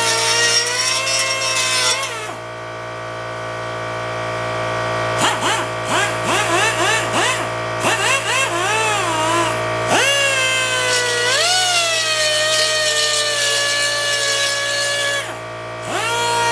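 Pneumatic die grinder with a grinding stone working the painted sheet-steel panel, giving a high whine whose pitch sags each time the stone bears on the metal and climbs back as it eases off. The whine drops away for a few seconds after about two seconds in, then comes back in quick on-off bursts with rapid pitch swings. It settles into a steadier run before stopping briefly and starting again near the end.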